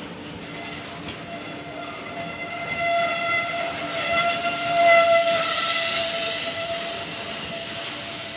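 A train passing, its horn holding a long steady note while the rush of the train swells, loudest about five to six seconds in.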